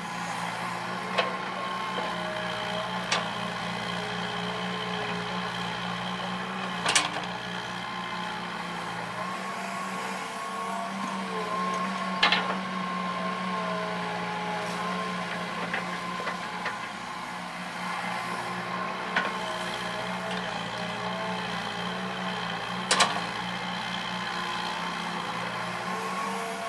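Hitachi EX120 hydraulic excavator's diesel engine running steadily under load while digging and dumping soil. A whine above the engine note shifts in pitch as the arm and bucket move, and there are about six sharp knocks.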